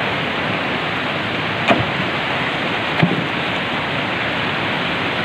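Fast mountain river rushing over boulders in a steady, unbroken roar of water. Twice, a little over a second apart partway through, a brief sharp knock cuts through it.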